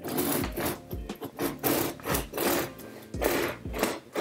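Serrated bread knife sawing back and forth through a crusty ciabatta loaf, the crisp crust crackling with each stroke, about three strokes a second.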